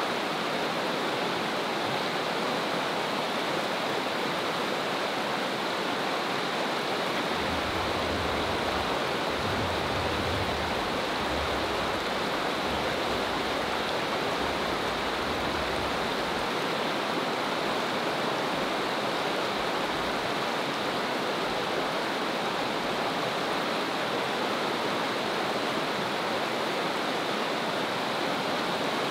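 Steady rush of a fast, shallow creek tumbling over rocks through whitewater riffles.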